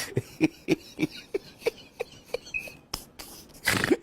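Steady rhythmic knocking, about three knocks a second, with a short loud rushing noise near the end.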